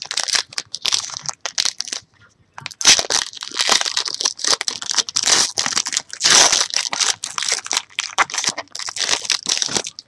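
Foil trading-card pack wrappers being torn open and crumpled by hand: a dense crinkling crackle, with a short pause about two seconds in.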